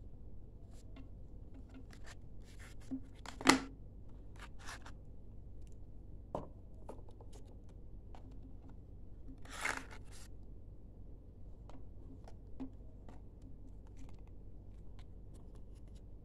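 Cardboard phone box and paper insert being handled: scattered light taps, clicks and paper rustles. The loudest is a sharp knock about three and a half seconds in, with a short rustle of paper near ten seconds.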